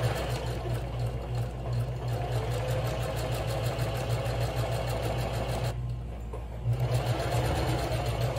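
Electric sewing machine running steadily, stitching a seam through two layers of cotton fabric with rapid needle strokes. It stops for about a second about two-thirds of the way through, then starts stitching again.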